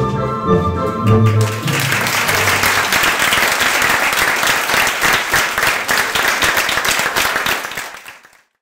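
Dance music ends about one and a half seconds in, and an audience breaks into applause, which fades out near the end.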